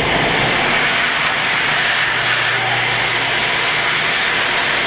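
Electric target carrier running on its overhead track, a steady mechanical hiss as it pulls the paper target back toward the shooting bench.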